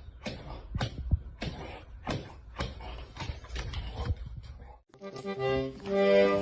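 A quick run of irregular knocks and scrapes, then after a sudden cut about five seconds in, music with long held notes starts.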